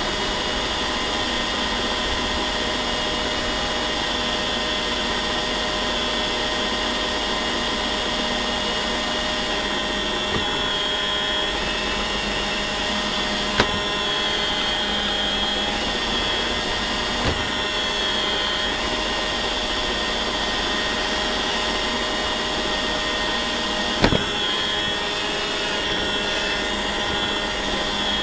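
Roomba robot vacuum running, heard up close from on top of it: a steady motor hum and whine with the brushes working, broken by a few sharp knocks.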